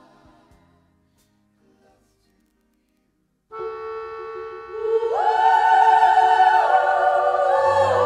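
Background music from a 1940s–50s love song track: the previous song fades out, a couple of seconds of silence follow, then the next song starts about three and a half seconds in with long held harmonized notes that swell louder a second or so later.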